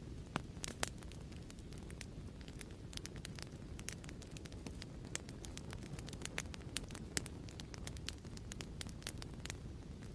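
Wood fire crackling in a fireplace: irregular, sharp pops and snaps over a faint, steady low rush of burning.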